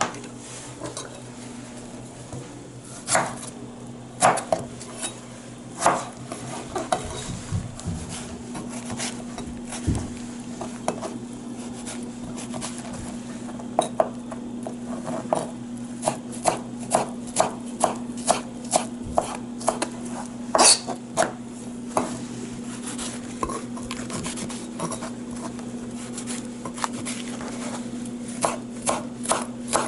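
Knife blades clicking on a plastic cutting board as strawberries are sliced, first with a small cleaver, then with a thin-bladed knife. The clicks are scattered at first, come more steadily from about halfway, and come in quick runs near the end, over a low steady hum.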